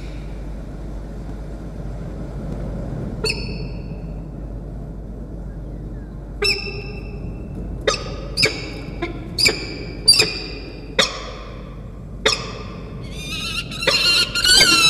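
Peregrine falcons calling: short, sharp, piercing calls, one at about three seconds in and then roughly one a second from about six seconds. Near the end a loud, continuous harsh squawking breaks in from the arriving young male falcon.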